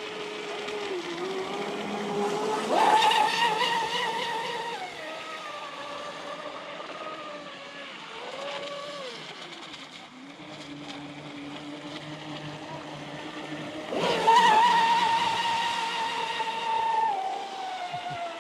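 Traxxas M41 RC boat's 1450Kv brushless electric motor whining as it runs on the water. The pitch jumps sharply on full throttle about three seconds in and again about fourteen seconds in, and each burst holds for two to three seconds before easing off. It gives a shorter rev in between.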